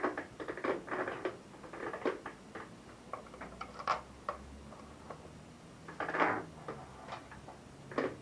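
Irregular clicks, knocks and light rattles of hand tools and small metal parts being handled, with a longer scraping rattle about six seconds in.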